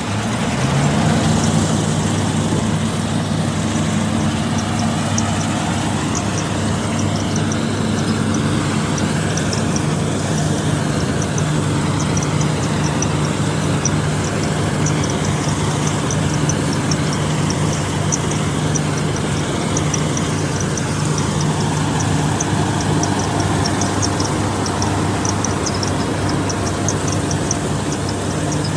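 Combine harvester's diesel engine running under load at a steady note, rising in pitch about a second in, with a fast, light ticking over it.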